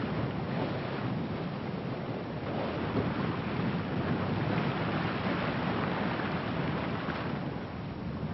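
Steady rush of wind and sea waves at sea, with wind buffeting the microphone.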